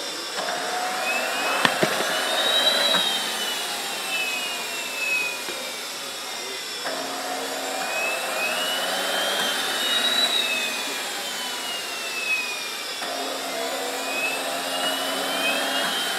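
Twin JetCentral Super Eagle model jet turbines in cool-down mode after shutdown: the starters spin the engines up with a rising whine that then winds down, repeating three times about six seconds apart. A sharp click sounds about two seconds in.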